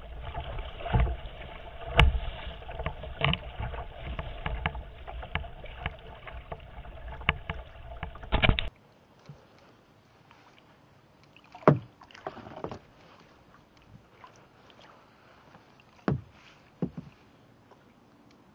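Kayak in choppy, wind-driven lake water: waves slapping and splashing against the hull and paddle strokes, with rumbling wind on the microphone and many sharp knocks. About nine seconds in the sound drops abruptly to a faint hiss broken by four or five separate splashes.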